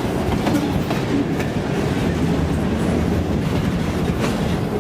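Freight train rolling by: a steady low rumble with scattered clicks of steel wheels over the rail joints.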